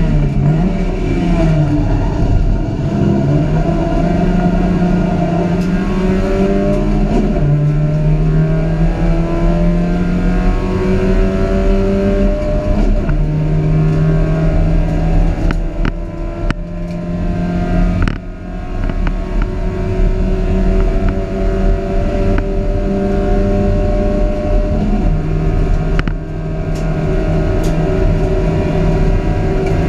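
Inside the cabin of a Dacia Logan Cup race car at racing speed: the engine note climbs through the gears and steps down at each shift. Around the middle and again near the end the engine briefly drops away as the driver lifts off, with a few sharp knocks.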